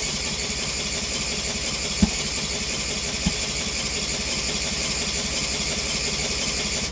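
Electric starter cranking the cold Briggs & Stratton 20 hp V-twin steadily, with a couple of sharp little pops about two and three seconds in, but the engine never catches: it is flooded with fuel. The cranking stops at the very end.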